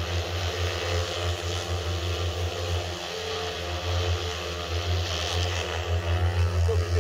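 Rotors of a Joyance 16-litre agricultural sprayer drone (404QC) humming steadily as it flies low. The hum dips briefly about three seconds in.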